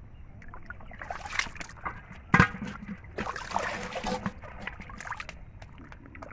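Shallow muddy water sloshing and splashing as bare hands scoop and grab fish, in irregular bursts, with one sharp knock a little before halfway.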